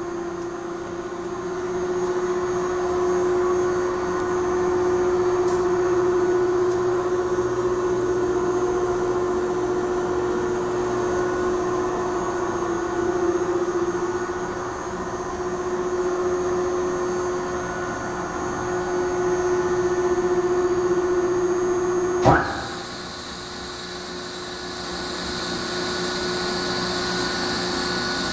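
Polin tilt-bowl spiral mixer running, its electric motor and drive giving a steady hum. About 22 seconds in a sharp click, after which the running sound gets quieter and a higher hiss joins it.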